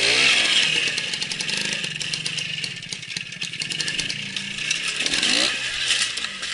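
Classic two-stroke trials motorcycle riding slowly past close by, its single-cylinder engine popping steadily. The throttle is blipped near the start and again about five seconds in.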